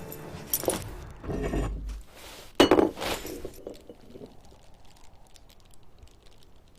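A few sharp impacts with clinking, glass-like ringing: one about half a second in and the loudest about two and a half seconds in, after which the sound dies away.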